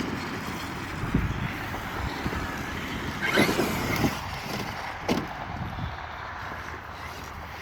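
Traxxas X-Maxx RC monster truck driving: a steady rush of motor, drivetrain and tyre noise, with a few knocks from the truck bouncing about midway.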